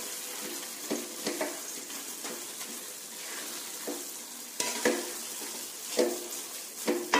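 Chana dal paste frying in ghee in a metal kadhai: a steady sizzle with irregular scrapes and knocks of a spatula stirring it against the pan. The dal is being roasted slowly until it gives off its aroma and releases the ghee.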